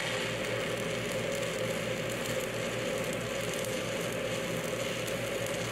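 Shielded metal arc (stick) welding with a 3/16-inch 7018 low-hydrogen electrode: a steady, even crackle and hiss from the burning arc as the second pass of a fillet weld is laid. The fume extractor hums steadily underneath.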